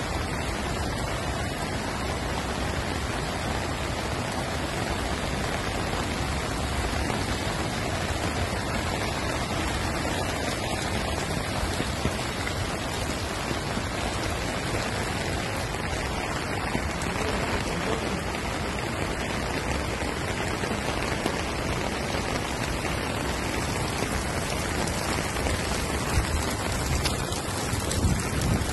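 Heavy rain falling steadily, an even hiss throughout, with a few brief bumps near the end.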